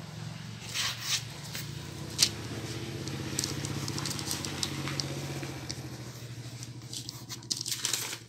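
Electric sewing machine running steadily, stitching, with a fine rapid pulse from the needle, and a few sharp clicks in the first couple of seconds.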